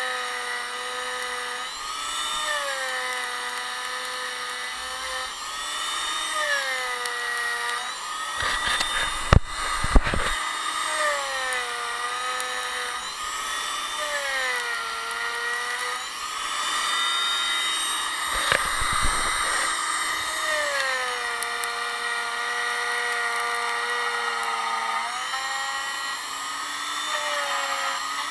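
Энкор plunge router with a 25.4 mm cove bit cutting a groove into an aerated concrete block. Its high motor whine dips in pitch and comes back up again and again as it cuts, with a few knocks partway through.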